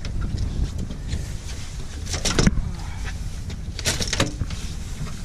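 Steady low rumble of the boat's engine. Two short bursts of clicking and rattling, about two and four seconds in, come from handling a seabass in a landing net with a fish grip while unhooking the lure.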